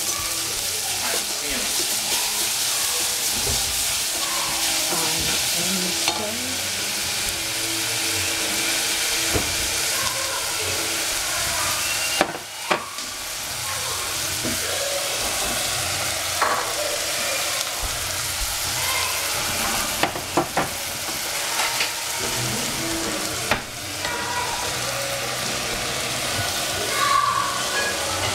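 Julienned celery and bell pepper sizzling steadily in a hot stainless steel saucepan, stirred with a wooden spatula that now and then knocks sharply against the pan.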